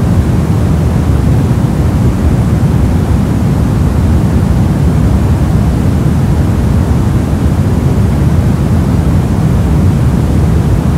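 Steady static noise, soft and weighted toward the low end rather than hissy, holding the same level with no changes.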